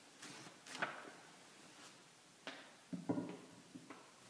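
Several light knocks and clunks, spaced irregularly, as heavy cast iron lathe leg castings are handled and set down on a bench.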